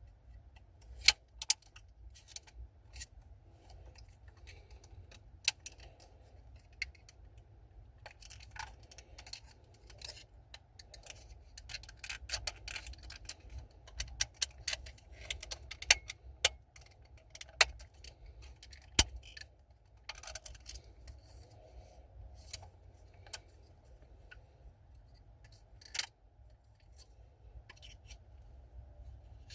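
Irregular small plastic clicks, taps and scrapes as a worn power door lock switch is pried and twisted out of its clips in a truck door panel with a flathead screwdriver; a few sharper clicks stand out among the fainter handling noise.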